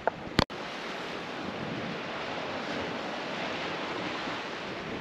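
Steady wash of the sea at the foot of the cliff, mixed with wind on the microphone, after a brief click about half a second in.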